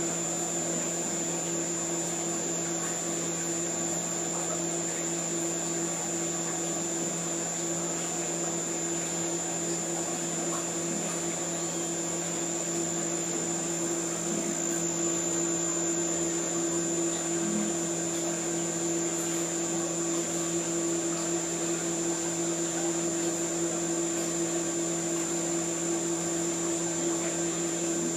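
Underwater treadmill machinery running steadily: an even motor-and-pump hum with a fixed high whine over it.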